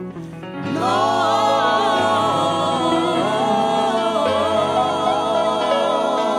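Gospel music with singing: voices come in about half a second in and hold long, wavering notes over a steady accompaniment.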